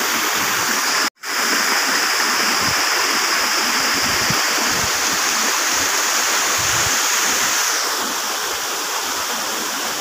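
Steady rush of a waterfall's falling water. It cuts out for an instant about a second in and turns a little softer and duller near the end.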